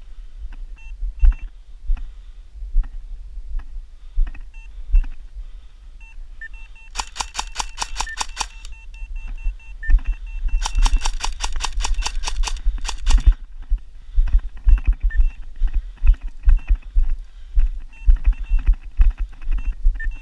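Airsoft gun firing two full-auto bursts at about ten shots a second: a short burst of just over a second about a third of the way in, then a longer one of nearly three seconds. Low thumps and faint repeated beeping run underneath throughout.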